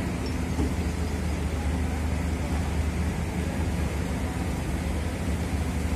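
A steady low mechanical hum from some running machine, unchanging throughout.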